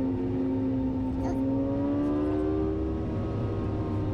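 VW Golf GTI TCR's turbocharged four-cylinder engine pulling under acceleration, heard from inside the car, its pitch rising slowly as the speed climbs, with a brief hitch about a second in.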